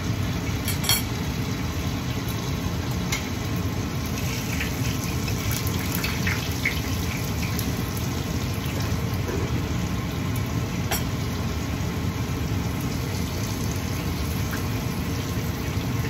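Steady low hum of a kitchen range hood's exhaust fan running, with a few sharp metallic clinks of a stainless steel pot lid being handled, one about a second in and one near eleven seconds.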